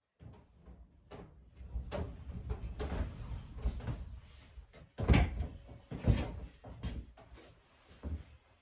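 A series of irregular knocks, bumps and short scrapes, like wooden parts being moved and set down by hand, with the two loudest knocks about five and six seconds in.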